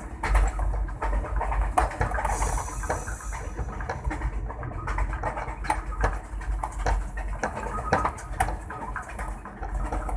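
Inside a ZCU-20 diesel locomotive's cab: the engine rumbles low and steady under a run of clicks and rattles, with a brief hiss about two seconds in.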